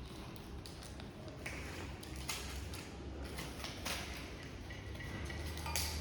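Faint, scattered light taps and scrapes, about five of them, over a low steady hum: tools and containers being handled while colour pigment is readied for mixing into marble adhesive.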